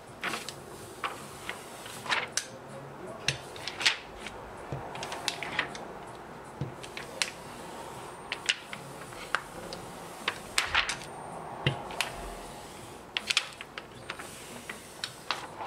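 Rubber brayer being rolled back and forth through green printing ink, spreading it smooth and thin on the roller: a steady soft hiss with many scattered sharp clicks and taps.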